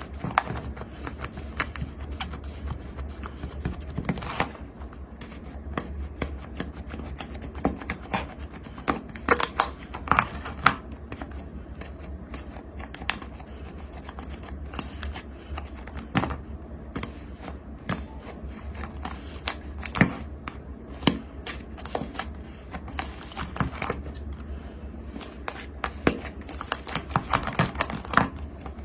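Slime being squished and pressed by hand, giving an irregular run of small sharp clicks and crackles over a low steady hum.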